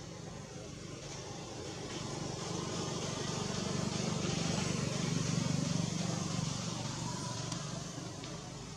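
A motor vehicle passing: a low running rumble that swells to its loudest about halfway through, then fades away.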